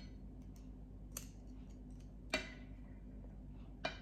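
Sharp metallic clicks of a flat metal blade working against a small metal key ring to pry it open: three distinct clicks, the middle one the loudest with a brief ring.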